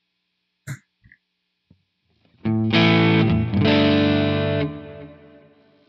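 Electric guitar played through a Quad Cortex capture of a Marshall Super Bass 100 amp set at the edge of breakup, lightly distorted. A short click comes under a second in. Two chords are struck about a second apart starting halfway through, and they ring out and fade.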